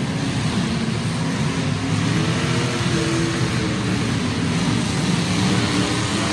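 Several demolition derby cars' engines running at once, a loud steady rumble with no single crash standing out.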